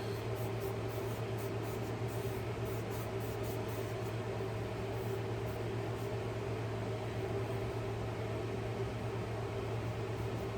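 Steady low machine hum, even and unchanging, with faint light scratching during the first half.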